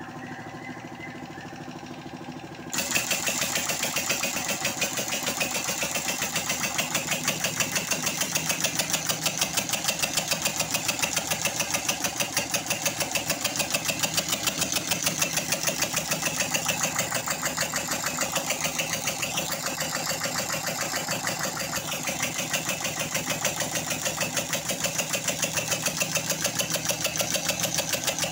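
A TVS XL Super moped's single-cylinder two-stroke engine, converted to run on compressed air, running with a rapid, even chuffing of air-exhaust puffs. It gets much louder about three seconds in, then runs steadily.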